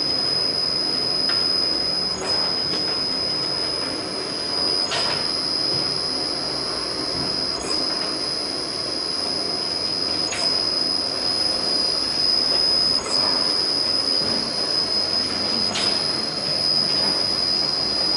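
Factory machine running with a steady high-pitched whine over a dense mechanical noise, with a short sharp click roughly every three seconds.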